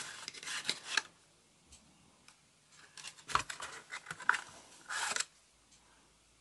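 Cardboard tuck box and paper playing cards being handled: the box flap opened and the deck slid out, in short crisp rustles through the first second and again from about three to five seconds in.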